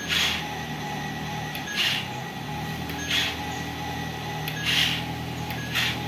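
Toy remote-control dump truck's built-in sound effects: a steady low engine hum with a short hiss repeating about every second and a half.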